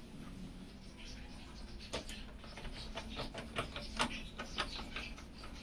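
Irregular light clicks and taps of computer parts and screws being handled during a PC build, with a sharp click about two seconds in and a quicker run of clicks after.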